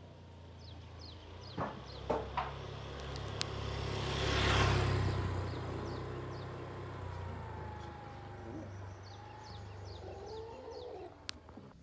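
A motor vehicle passing on the road: its engine and tyre noise swells to a peak about four to five seconds in and then fades, over a steady low hum. A bird gives runs of quick high chirps near the start and again near the end.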